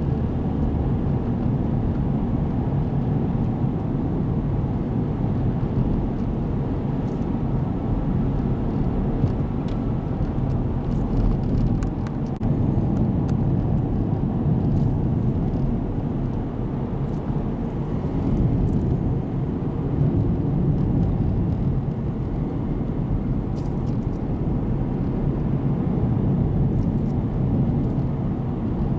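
A car driving along a paved road, heard from inside the cabin: a steady low rumble of engine and tyres at cruising speed.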